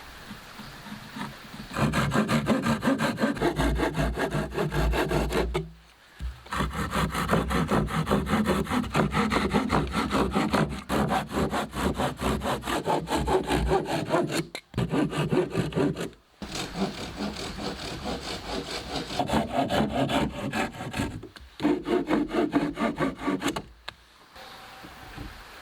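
Hand saw cutting through wood with fast, steady back-and-forth strokes, in several runs broken by short pauses.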